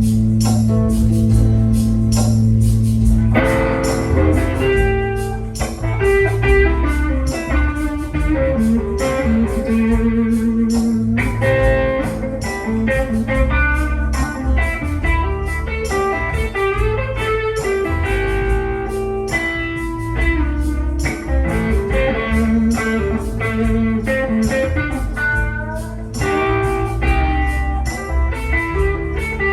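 A band playing an instrumental break in a blues-rock song: a guitar lead over bass and a steady beat.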